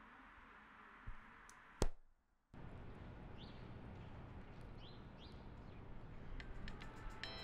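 A sharp click about two seconds in, then a moment of dead silence before a steady daytime ambience with a few faint, short bird chirps. Near the end a bright, plinking tune begins.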